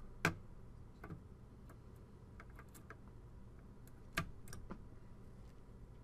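Faint scattered clicks and ticks of a desktop CPU being handled and set down into its motherboard socket, the loudest about four seconds in.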